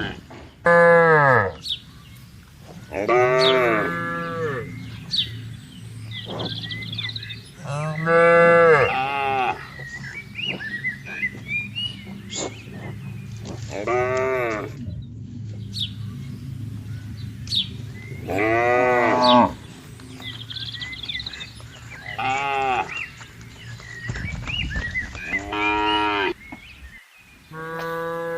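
Cattle mooing: about six loud, drawn-out calls a few seconds apart.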